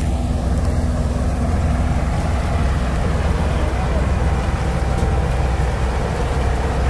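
Combine harvester's diesel engine running with a steady, deep drone while the machine cuts a standing mustard crop.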